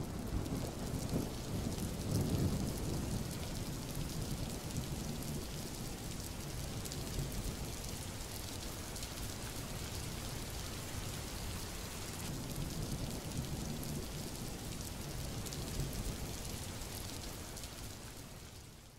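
Steady rain-like hiss with a low rumble underneath, fading out at the very end.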